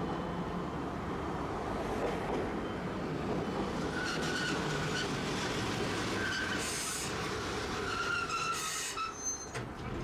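Tosaden streetcar pulling into a tram stop and braking to a halt: the running noise of the tram on the street rails, with squealing from the wheels from about four seconds in, two short hisses near the end, and the noise dropping as it stops.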